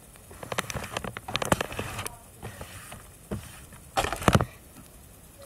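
Close scratching and scraping noises in irregular short strokes, with a louder burst about four seconds in: a home-made scratching sound effect for the creature scratching at the cabin in the story.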